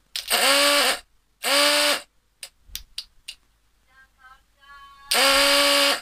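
Electric motorcycle horn, a motor-driven compressor unit fed from a 12-volt adaptor, sounding in three bursts of about a second each as its wires are touched on: a loud steady buzzing tone whose pitch rises briefly as each burst starts and sags as it cuts off. Sharp sparking clicks from the wire contacts come between the second and third bursts.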